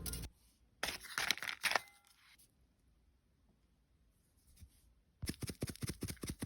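Quiet crisp crackling and snapping of dry microwaved potato chips being handled. One short burst comes about a second in, and a denser run starts near the end.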